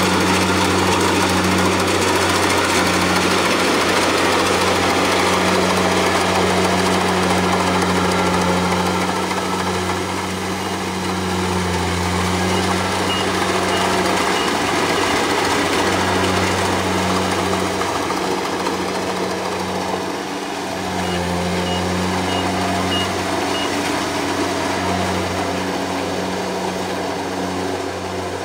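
Kubota combine harvester's diesel engine and threshing machinery running with a steady low drone. Short runs of faint high-pitched beeping come in about halfway through and again near the end.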